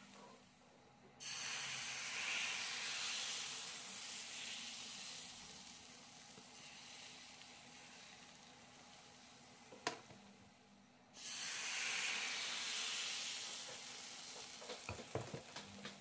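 Thin crepe batter sizzling in a hot crepe pan: a steady hiss that starts abruptly about a second in and slowly dies down, then starts abruptly again about eleven seconds in. A single sharp click just before ten seconds, and a few light clicks near the end.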